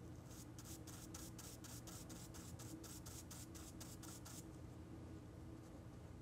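Stipple brush dabbing dye ink onto thin rice paper: a quick, even run of soft taps, about five a second, that stops a little over four seconds in. Faint.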